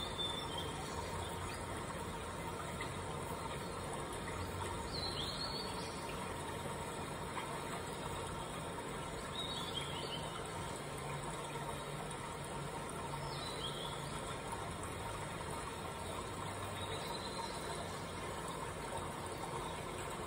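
Steady background hiss with faint, short bird chirps every few seconds, each a quick falling note.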